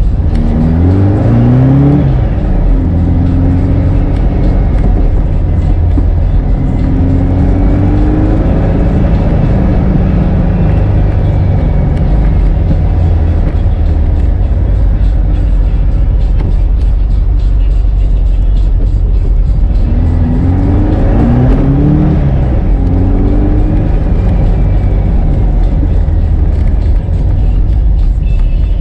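A 1965 Volkswagen Beetle's 1776cc air-cooled flat-four running through an A1 exhaust while driving, with a steady low rumble under road noise. The engine pitch rises as it accelerates near the start and again about two-thirds of the way through.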